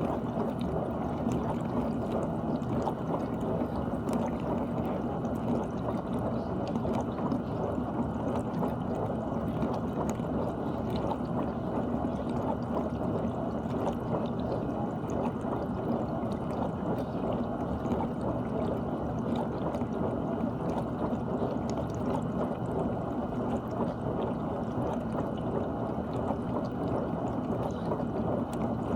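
GE dishwasher running, with water rushing and splashing inside the tub over a steady low pump hum.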